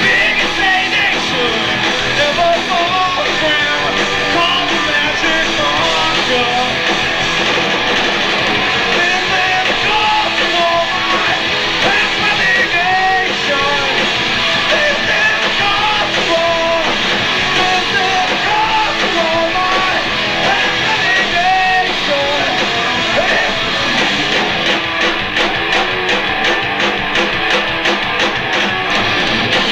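Rock band playing live, with electric guitars and a singing vocal, taped from the audience.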